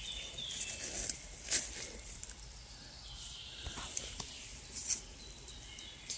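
Rustling and crackling of dry leaves and twigs in the forest litter as a bolete mushroom is pulled up and handled, with a few sharp clicks, the loudest about a second and a half and about five seconds in. Faint bird chirps sound behind.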